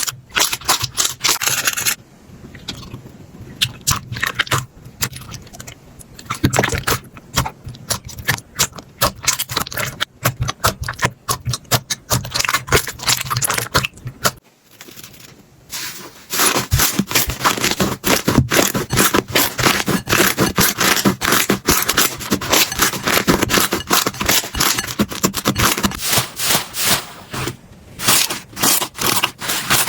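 Slime being squeezed and worked by hand, making a dense run of sharp clicks, pops and crackles, with a short pause about halfway through.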